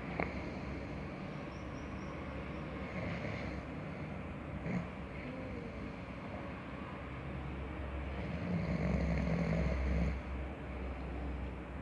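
Steady snoring of a sleeper, with a louder, longer snore about nine seconds in.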